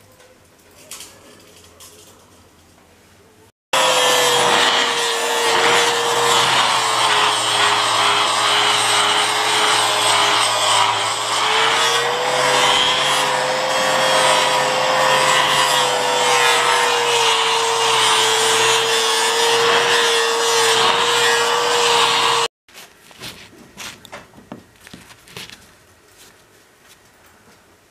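Angle grinder fitted with a sanding disc, run against a pine board to roughly sand it so it looks like an old beam: a steady motor whine over a loud abrasive grinding, the pitch sagging and recovering slightly as the disc is pressed into the wood. It starts abruptly about four seconds in and cuts off abruptly near the end.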